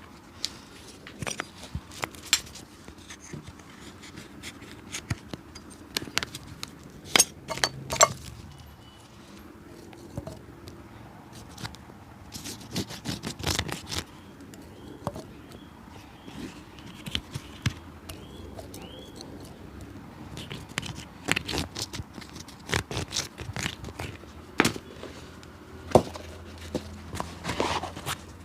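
A cobbler's hand tools working on a shoe: irregular taps, clicks and scrapes, with a few sharper knocks.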